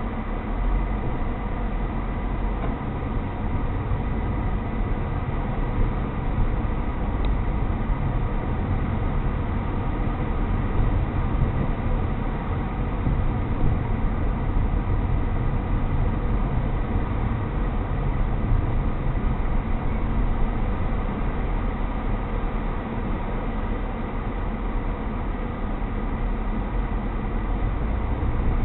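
Steady low road-and-engine rumble of a moving car, heard from inside the cabin, with a thin steady whine above it.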